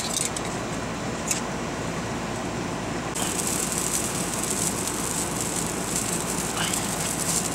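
Salmon fillets sizzling skin-side down on the grill: a steady hiss that turns brighter and louder about three seconds in, with a couple of faint ticks.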